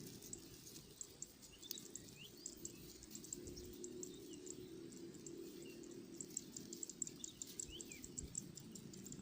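Faint rice-field ambience: insects, such as crickets, chirping in short rapid pulses, with a few brief bird chirps over a low steady rumble.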